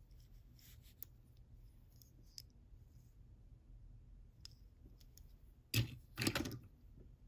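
Faint clicks and taps of fingers handling a small diecast toy truck, turning it over, with a brief louder clatter of diecast cars about six seconds in.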